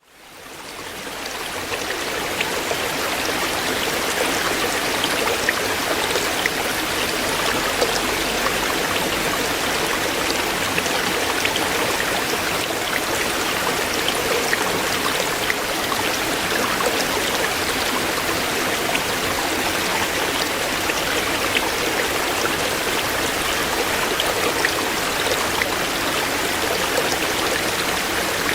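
Shallow stream running over stones, a steady rushing and burbling of water with small splashes, fading in over the first couple of seconds.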